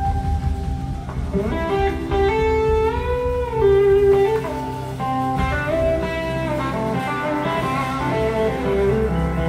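Live blues-rock band playing an instrumental passage, led by an electric guitar line whose notes glide and bend between pitches over the band's steady low end.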